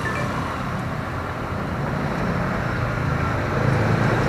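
Steady low rumble of motor vehicle traffic, slowly growing louder.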